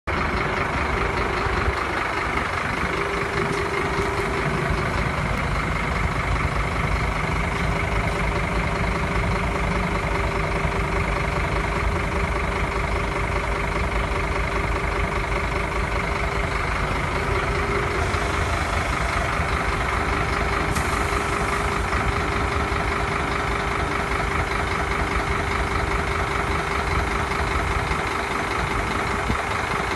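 Scania P270 truck's diesel engine idling steadily, with a steady whining tone running over it.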